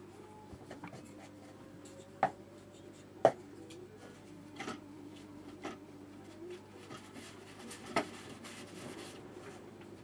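Quiet handling sounds of watercolour painting: a few sharp clicks, the loudest about three seconds in, and soft rustling as a crumpled tissue is dabbed on the wet paper.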